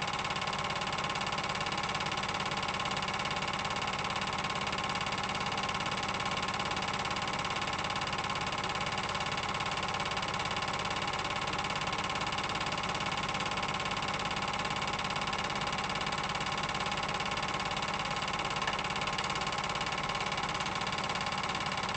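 Film projector running: a steady mechanical whir with a fast, even rattle that does not change.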